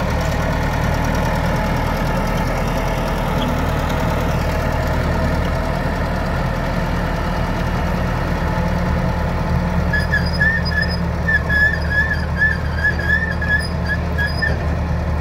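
D-50 A-15 crawler bulldozer's diesel engine running steadily as it pushes soil aside with its blade. From about ten seconds in, a high, wavering whistle-like squeal comes and goes for a few seconds.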